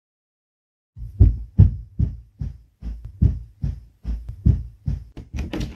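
Heartbeat sound effect: after about a second of dead silence, low thumps start at about three a second and quicken toward the end.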